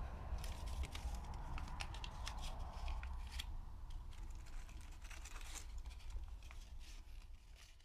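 Hands rummaging through dry rubble and debris: scattered scrapes, crinkles and small clicks over a low steady rumble.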